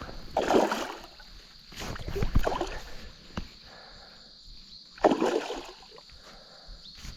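Water splashing in three bursts as a hooked golden perch (yellowbelly) thrashes at the surface during the fight.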